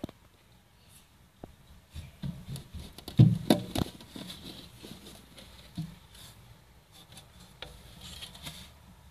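A plastic hamster food bowl handled and lifted in a glass tank: scattered clicks and scrapes, with a loud cluster of knocks about three seconds in, and light rustling of paper bedding afterwards.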